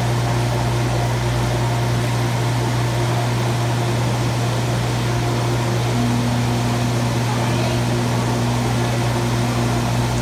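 Steady mechanical hum of fan or blower machinery. A second, higher steady tone joins about six seconds in, around when the air blower exhibit's button is pressed.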